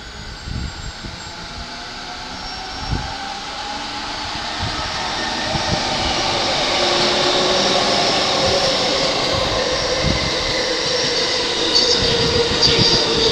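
An E217-series electric train accelerating away from the platform. Its motor whine rises steadily in pitch and grows louder, with low knocks from the wheels underneath.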